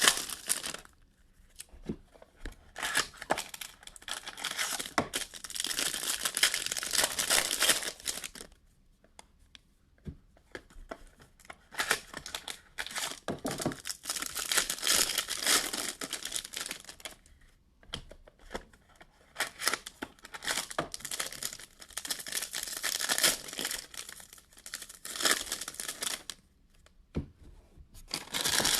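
Trading-card box packaging being torn open and crumpled by hand, crackling in three long spells with short pauses between them.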